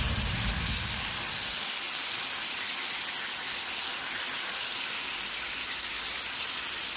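Marinated meat sizzling steadily on a hot flat griddle, a constant even hiss.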